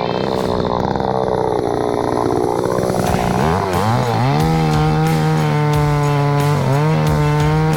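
Chainsaw engine running hard. Its pitch sags and recovers over the first few seconds, then climbs and holds high and steady, dipping once briefly near the end.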